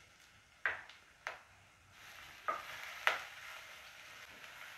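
Whole spices and ginger-garlic paste frying in ghee in a pressure cooker with a soft sizzle, while a wooden spatula stirs them and knocks against the pot four times.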